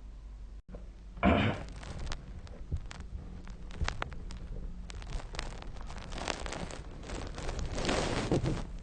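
Sleeping person in bed: a short noisy breath or snort about a second in, then light rustling and scattered small clicks, and a longer noisy breath near the end.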